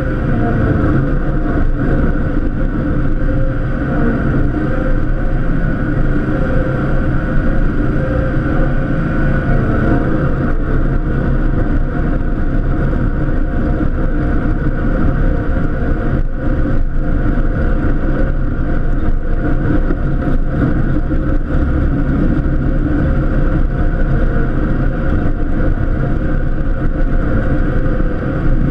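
Cub Cadet LTX1050 KW lawn tractor's engine running steadily while plowing snow.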